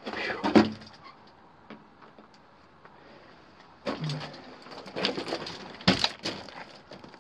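Scuffing and scraping of someone moving over loose rock and old wooden timbers on a mine floor, in bursts with a quiet pause between, and one sharp knock about six seconds in.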